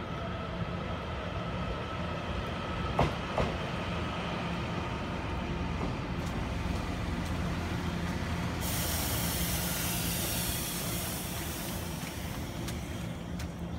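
Taiwan Railways TEMU2000 Puyuma tilting electric multiple unit pulling into the platform: a steady low running hum with a faint whine, two sharp knocks about three seconds in, and from about nine seconds a loud hiss of air from the train.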